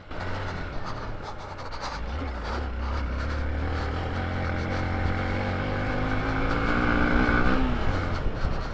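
Hero Xpulse motorcycle's single-cylinder engine running under way, its pitch climbing steadily as it accelerates, then dropping away suddenly near the end as the throttle closes.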